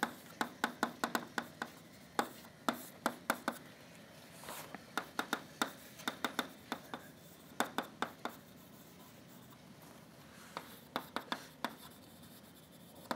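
Chalk writing on a blackboard: quick clusters of sharp taps and short scratches as letters and symbols are written, with a break of about two seconds near the end before one more short run of taps.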